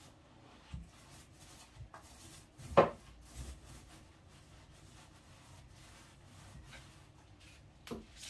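Faint rubbing of paint being brushed onto a plywood kitchen cabinet, with one short, sharp knock about three seconds in and a smaller one near the end.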